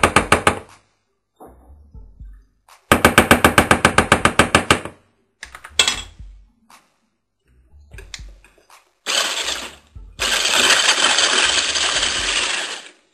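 A whisk beating eggs and butter, clattering against the bowl in fast, regular strokes in two bursts. About nine seconds in, an electric hand blender with a whisk attachment starts running steadily in the batter.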